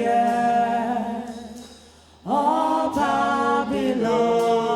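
Unaccompanied voices singing long held notes. The singing fades away about two seconds in, then comes back on a new sustained note.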